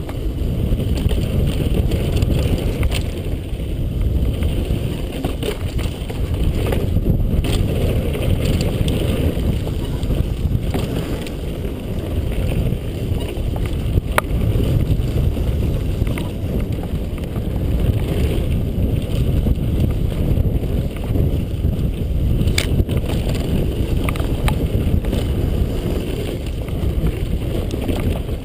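Wind buffeting a helmet-mounted camera's microphone during a mountain-bike descent, a steady low rumble, with occasional sharp clicks and knocks from the bike rattling over the rough dirt trail.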